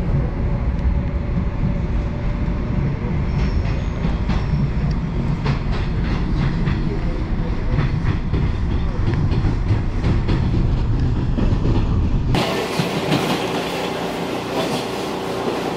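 Rumble and rail noise of a moving passenger train heard from on board, with wheels ticking over rail joints. About twelve seconds in the sound cuts abruptly to a brighter, hissier noise with far less rumble.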